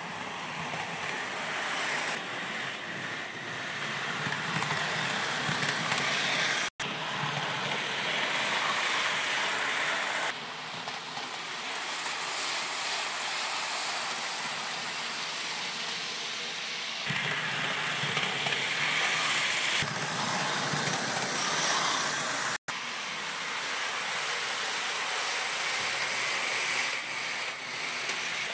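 Mehano TGV Duplex model train running on its track: the steady whir of its small electric motor mixed with the wheels rolling over the rails. It breaks off briefly twice, about seven and about twenty-three seconds in.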